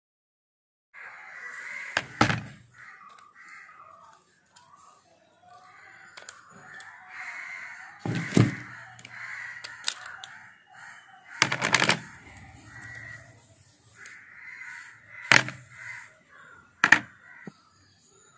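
Crows cawing repeatedly in the background, with a few sharp metal clicks and knocks as an air compressor's piston and piston rings are handled and worked off.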